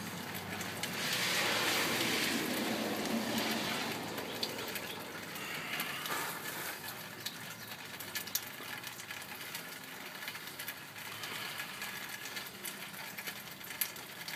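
Mechanical clicking and rattling from sewer inspection camera gear being handled, over a steady hiss of rain. A louder rush of noise comes in about a second in and lasts a few seconds.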